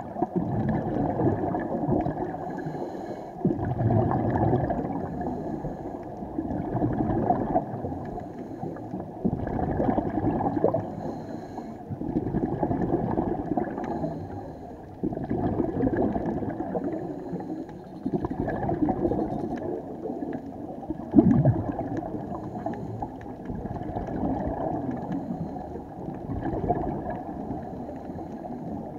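Scuba diver breathing through a regulator underwater: bursts of exhaled bubbles gurgling about every three seconds, one burst about two-thirds of the way through louder than the rest.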